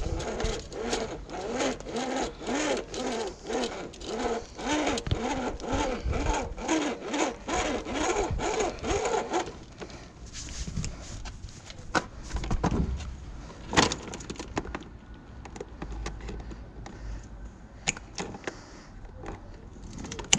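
Rhythmic back-and-forth sawing, about two strokes a second, for the first nine seconds or so, then it stops. A few sharp clicks and knocks follow, the loudest about fourteen seconds in.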